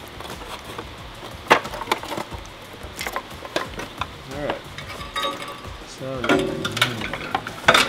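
Sheet-metal engine shroud of an air-cooled Porsche 930 flat-six being worked loose and lifted off by hand: scattered metallic knocks, clicks and rattles with scraping and rustling. The loudest knocks come about a second and a half in and near the end.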